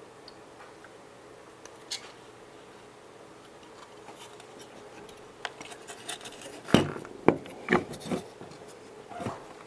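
Handling noises: scattered clicks and scrapes, then a cluster of louder knocks and rattles about seven to nine seconds in.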